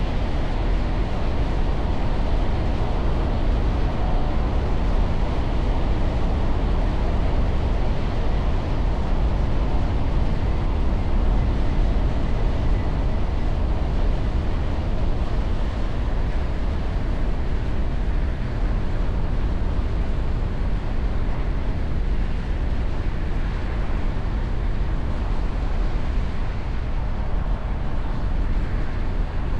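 Steady road noise from a vehicle moving through traffic: an even rumble, heaviest in the low end, with no distinct horn blasts or other events standing out.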